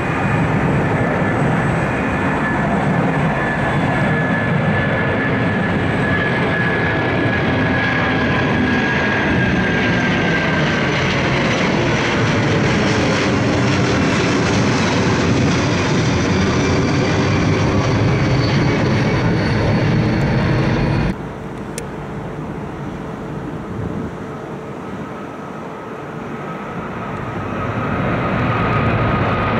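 Twin-engine Airbus A330 airliner climbing out overhead after takeoff, its jet engines loud with a whining tone that slowly falls in pitch as it passes. This cuts off suddenly about two-thirds of the way through, and a United Boeing 777 climbing out grows louder near the end.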